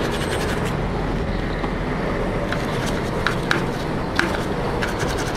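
Small stiff brush scrubbing a circuit board: a steady scratchy hiss with scattered light clicks.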